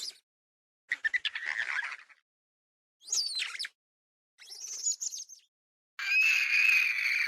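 Sound-designed dinosaur calls for Procompsognathus: a run of short, high-pitched chirping squeals with gliding pitch, separated by silent gaps. The last call, near the end, is longer and holds a steadier pitch.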